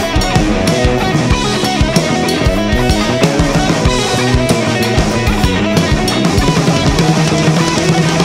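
Rock band playing an instrumental passage: a drum kit keeps a steady beat under electric guitar, with no singing.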